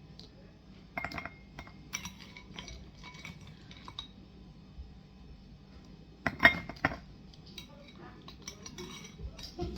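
Ice cubes being put into a bowl set over a glass, clinking and knocking against it in scattered strikes, the loudest pair about six and a half seconds in.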